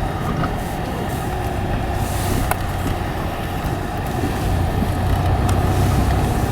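Car driving slowly, engine and road noise heard from inside the cabin as a steady low rumble, with a couple of light clicks.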